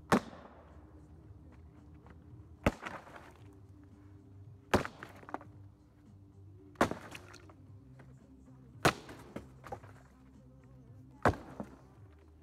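Sledgehammer blows smashing Bose speakers' wooden cabinets: six heavy strikes, about one every two seconds, each a sharp crack followed by splintering wood and rattling debris.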